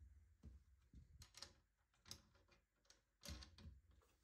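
Faint, scattered small clicks and ticks of a steel M10 nut being turned by hand on a threaded rod, two nuts being run together to lock them.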